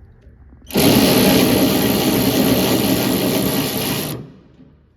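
Hyper Tough 12-volt cordless electric ratchet running on a hood bolt, a steady motor-and-gear whir that starts about a second in and cuts off after about three and a half seconds.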